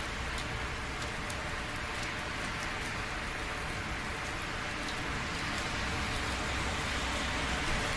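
Steady rain falling, an even hiss with scattered sharp ticks of drops striking close by, over a low rumble.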